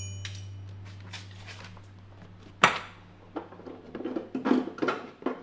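Background music fades out. About halfway in comes a sharp plastic click, then a string of short knocks and rattles as the car's SRS airbag control module is unplugged and worked loose from under the dash.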